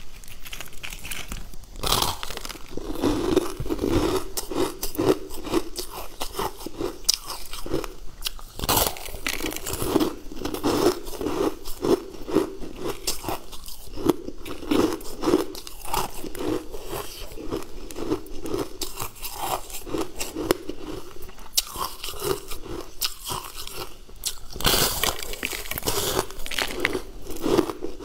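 Crunching bites and chewing of a frozen, sugar-crusted treat: a dense, irregular crackle of crunches, with sharper, louder bites about two seconds in, near nine seconds and near the end.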